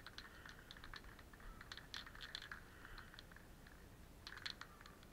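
Faint, irregular crunching and clicking of footsteps on loose wood chips, with a few sharper clusters of clicks.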